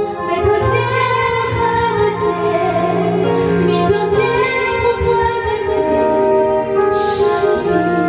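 A woman singing a song into a karaoke microphone over an instrumental backing track.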